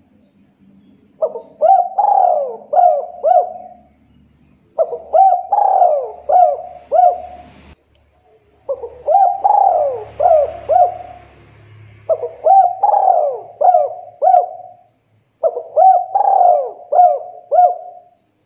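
Spotted dove cooing: five phrases, each a quick run of four or five coos, separated by pauses of a second or so.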